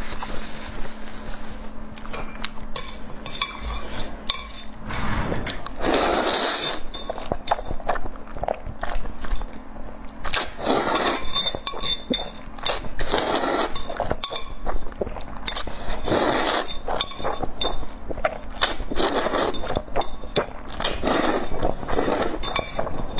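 Close-up eating sounds of chicken curry with noodles: repeated chewing and mouth noises, with utensils clinking against the dish.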